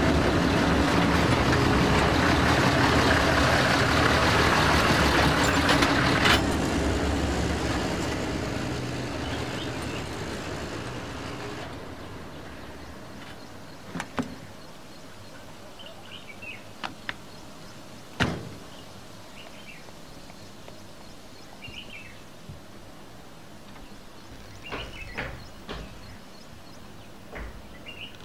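A military jeep's engine runs loudly as it drives up, with a sharp click about six seconds in, then dies away over the next several seconds. Then a few sharp knocks like vehicle doors shutting, the loudest about eighteen seconds in, with short bird chirps in between.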